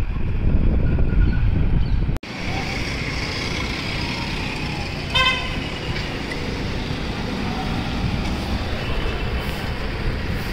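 Street traffic noise with a vehicle horn giving one short toot about five seconds in. For the first two seconds wind buffets the microphone, then the sound cuts off abruptly into the traffic.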